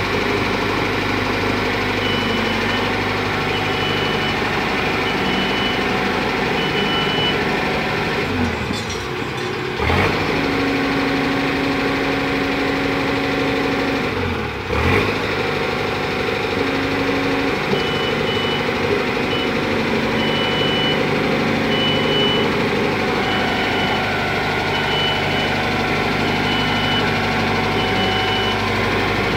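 Boom lift engine running steadily as the lift drives, its note dipping briefly twice. The lift's motion alarm beeps at an even pace for a few seconds early on, then again from a little past halfway to the end.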